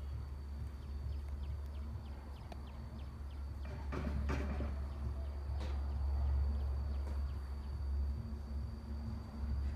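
Low wind rumble on the microphone, with a steady high-pitched whine over it. There are a few faint ticks early on and two brief scratchy rustles, the first about four seconds in and a shorter one near six seconds.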